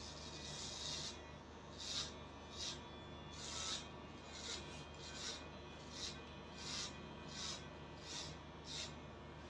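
Electric hair clippers running with a steady hum, cutting through hair on the nape in short rasping strokes about every three quarters of a second.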